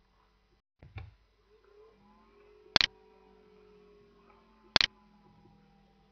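Computer mouse clicks: two sharp single clicks about two seconds apart, with a softer knock about a second in, over a faint background hum.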